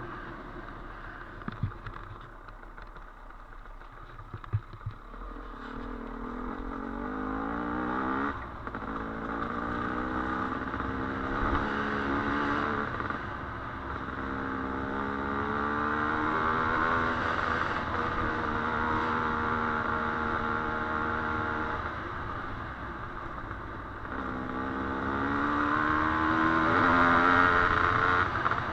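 Dirt bike engine ridden on a trail, its pitch climbing under throttle, dropping abruptly at a gear change about eight seconds in, and climbing again near the end. A few sharp knocks in the first few seconds.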